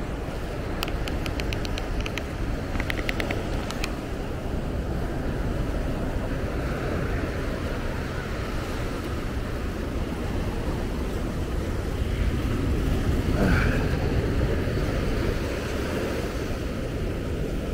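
Ocean surf breaking and washing up over sand and rocks, a steady rush that swells louder about twelve seconds in. Two quick runs of faint clicks come about a second in and again near three seconds.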